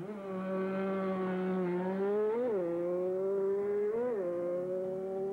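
Enduro motorcycle engine at full throttle on an acceleration run, a high, fairly steady note that twice flares up briefly and settles back, about two and a half and four seconds in.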